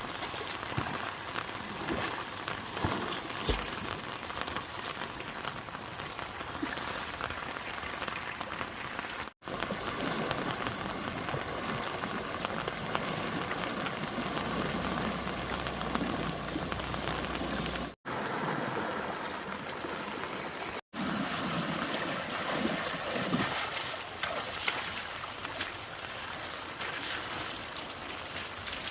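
Steady rain falling with running water, a dense even hiss with scattered small splashes, briefly cut out three times.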